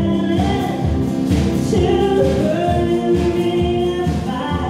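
Live country music: acoustic guitars strummed to a steady beat under held sung notes from a woman singing at the microphone.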